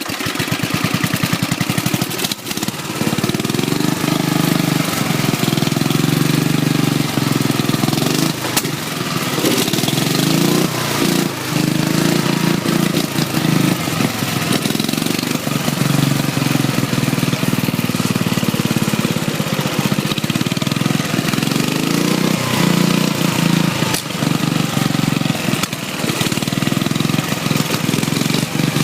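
Racing lawn mower's small 7-horsepower engine running as the mower is ridden, its pitch rising and falling with the throttle.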